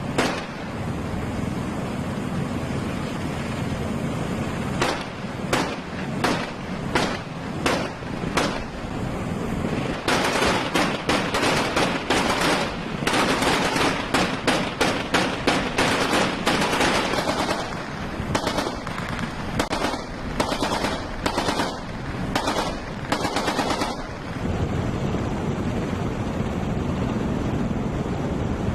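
Machine-gun fire: single shots about half a second to a second apart, then a dense rapid run of fire from about ten seconds in to about seventeen, then more spaced shots until about twenty-four seconds. Steady wind and sea noise follows.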